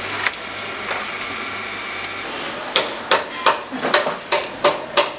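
Steady background noise, then from about halfway through a run of about eight sharp knocks, irregular at roughly three a second.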